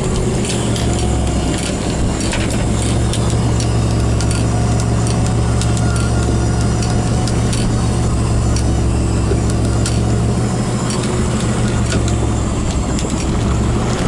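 Fishing boat's engine running steadily under way, a constant low drone with a hiss of wind and water over it and scattered sharp clicks.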